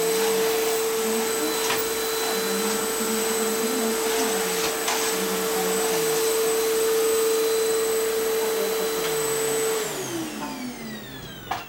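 Canister vacuum cleaner running with a steady motor whine. Near the end it is switched off, and the whine falls in pitch as the motor spins down. A sharp knock comes just before the close.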